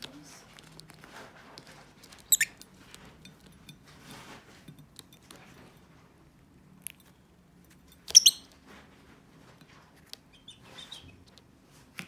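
Fischer's lovebirds calling with two sharp, high-pitched chirps, one about two seconds in and one about eight seconds in, and a few softer chirps near the end. Between them there is light pattering and rustling as the birds move about the rim of their bathing dish.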